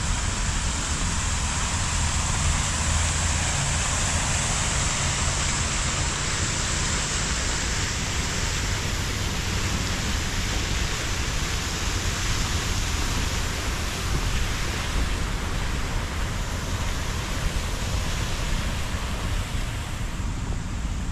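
Steady outdoor ambience: an even hiss with a low rumble beneath, the hiss thinning slightly in the last few seconds.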